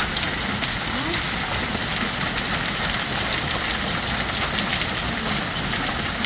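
Heavy rain mixed with hail, a steady hiss with many sharp ticks of hailstones striking hard surfaces.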